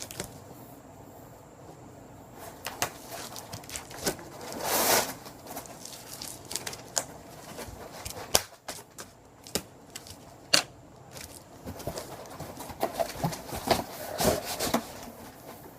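Cat moving about in an empty cardboard box: irregular scratches, taps and crinkling rustles of cardboard, with a louder scrabbling stretch about five seconds in and again near the end.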